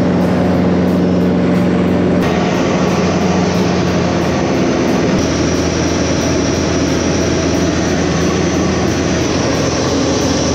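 Steady drone of a single-engine propeller plane's engine and propeller in flight, heard from inside the cockpit. The tone shifts abruptly about two seconds in and again about five seconds in.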